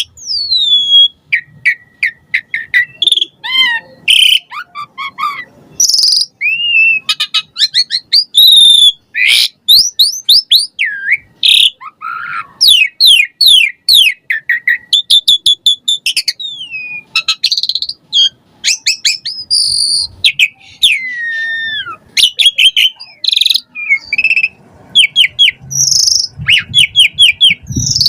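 Asian pied starling (jalak suren) in full, loud song: a nonstop varied run of whistles, falling glides, chattering series of quick repeated notes and sharp chirps, strung with phrases mimicked from other birds.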